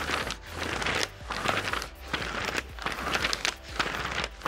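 A long strip of paper being drawn again and again over the corner of a table, each pull a dry scraping rustle. The corner is curling the strip's layered part so the paper ring plane will form a true circle.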